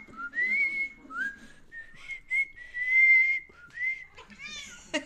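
A person whistling a tune in short, upward-gliding notes with one longer held note, to which a domestic cat responds. The cat meows once near the end.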